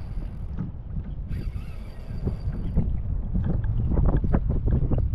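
Wind rumbling on the microphone, with scattered light clicks and knocks from a spinning reel and rod being worked on a fishing kayak. The clicks grow busier and louder in the second half.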